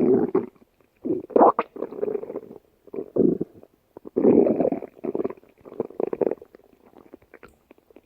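Cartoon stomach-growl sound effect: a stomach growling in a run of about seven short bursts, which stop for the last couple of seconds.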